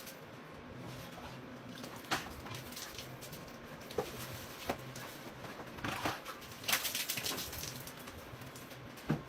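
Faint background noise with a handful of short, sharp clicks or knocks scattered through it, the strongest about two seconds in and a cluster about seven seconds in.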